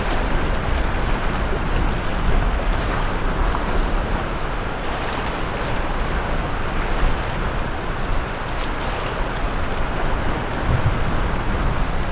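Sea waves breaking and washing on the shore as a continuous surf noise, with gusting wind buffeting the microphone as a low rumble.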